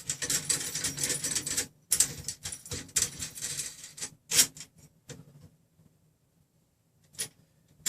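Quick clicks, taps and rubbing as the metal and plastic parts of a RepRap 3D printer frame are handled and slid into position. The clicking stops about five seconds in, with one more click near the end.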